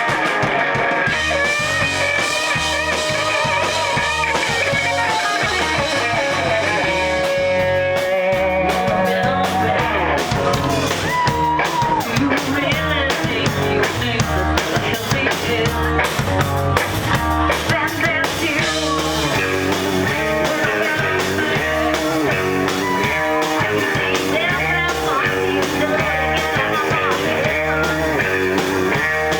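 A rock band playing live, led by guitar, with bending guitar notes over a steady bass pulse.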